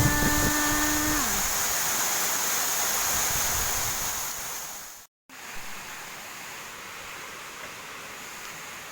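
Steady rushing noise of a waterfall, with a held, drawn-out exclaiming voice over it during the first second. About five seconds in the sound cuts out abruptly, then a quieter steady rush of water carries on.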